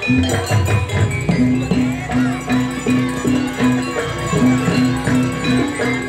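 Javanese gamelan ensemble playing traditional dance music: a pitched gong-chime note repeated about three times a second over drum strokes, with jingling bells.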